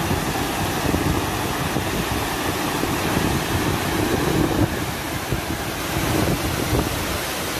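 Water pouring over a low weir, a steady rushing noise, with wind buffeting the microphone.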